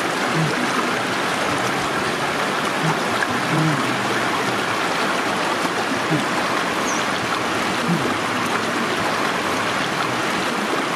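Steady rush of running water from a stream, an even rushing sound that goes on without a break.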